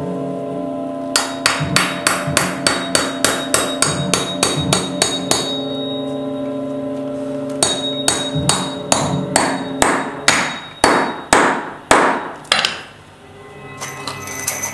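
Hammer driving common nails through a thick paperback book into an oak block: a quick, even run of strikes at about three a second, a pause of about two seconds, then a second run whose strikes spread out and stop near the end.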